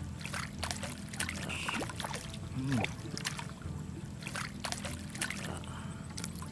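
Light water trickling and small splashes at the water's surface, with scattered short clicks over a low steady rumble.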